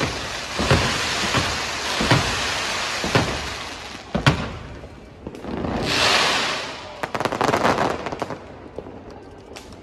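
Fireworks going off: sharp bangs about once a second over a steady hiss from the fountain and comet effects, a hiss that swells and fades around six seconds in, then a quick run of crackling pops near the end.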